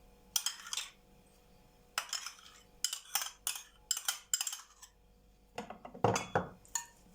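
A spoon scraping and clinking against a bowl in a string of short strokes, as sour cream sauce is spooned onto a salad. The last strokes, about six seconds in, are the loudest.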